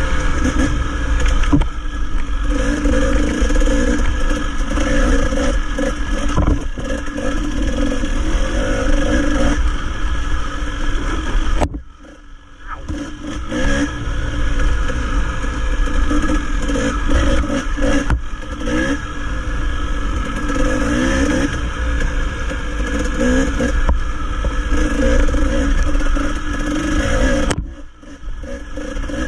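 Dirt bike engine revving up and down under changing throttle while riding a rough trail; the throttle closes briefly twice, about twelve seconds in and again near the end, before the engine pulls again.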